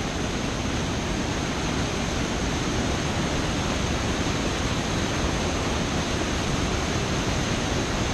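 Steady rush of Elephant Falls, a large waterfall, heard close up at its foot in the spray.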